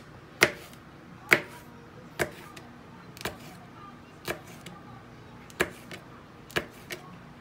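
Kitchen knife slicing a red bell pepper into strips, the blade knocking down onto a plastic cutting board about once a second, seven sharp taps with a few softer ones between.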